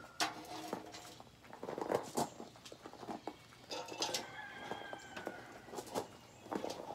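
Metal clanks and knocks as a replacement exhaust muffler and pipe sections are handled and worked into place under a car, with a couple of short metallic squeals about four seconds in.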